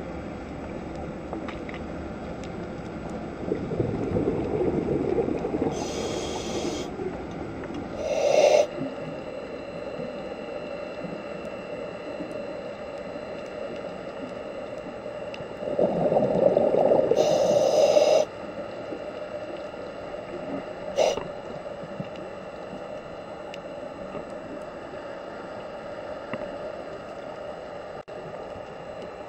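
Scuba diver breathing through a regulator underwater: two slow breaths about twelve seconds apart, each a rush of exhaled bubbles with a hiss from the regulator. Two brief shorter puffs come between them, over a steady underwater hum.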